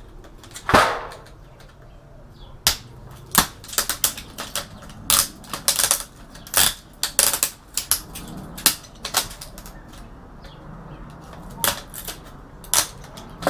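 Irregular sharp clicks and taps, some in quick clusters, from hands and tools working a finger strip circuit board loose from the metal back chassis of an LCD TV panel.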